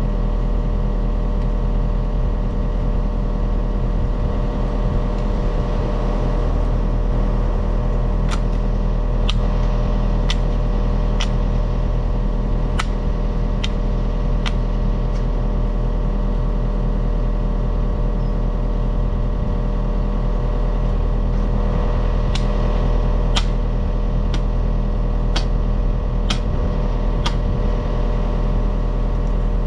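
Excavator's diesel engine running steadily, with sharp clicks about once a second in two spells.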